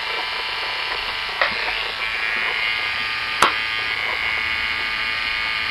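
Electric hair clippers buzzing steadily as they trim outlines into hair, with two brief clicks along the way.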